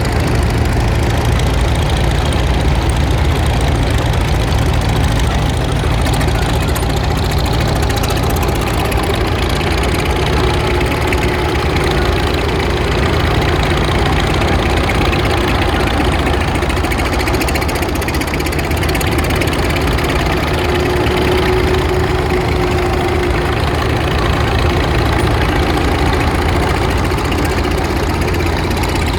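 Tractor engines running steadily at low speed as tractors drive past, a continuous low engine sound with a faint tone that drifts slightly in pitch.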